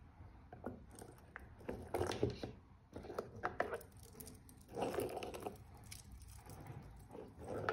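Handling noise of wristwatches with metal mesh bracelets being picked up and turned over in the hand: irregular light clicks and short rustling scrapes, a few bursts of them.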